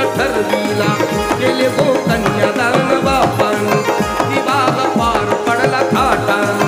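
Instrumental music from a Marathi devotional song: a hand drum keeps a steady beat of deep strokes under a wavering melodic instrument line.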